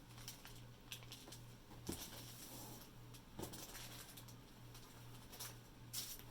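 Faint handling noises: scattered light clicks and rustles as objects are picked up and moved, over a faint low hum.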